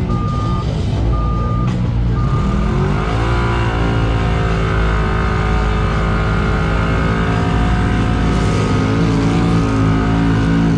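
A vehicle's backup alarm beeps three times, about once a second, over a running engine; then an engine revs up about three seconds in, holds at high revs, and eases back a little near the end.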